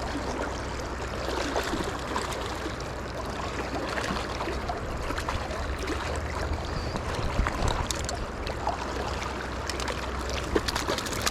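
River water running steadily over rocks, with a few short sharp clicks scattered through it.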